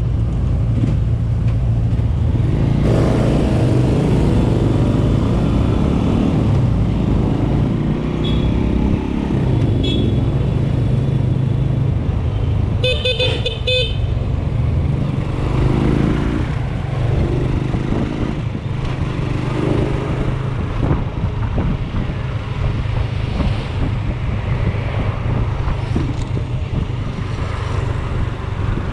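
AKT NKD motorcycle's single-cylinder engine running under way on a city street, growing louder about three seconds in. About halfway through, a vehicle horn sounds a quick series of short toots.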